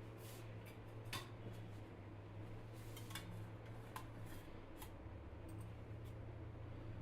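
Faint, scattered light clicks and clinks of kitchen utensils, about nine in all, the sharpest a little over a second in, over a steady low hum.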